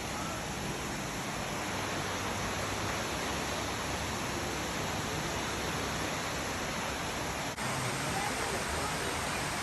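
Steady rushing roar of Multnomah Falls, an even hiss of falling water. It dips for an instant about three-quarters of the way through.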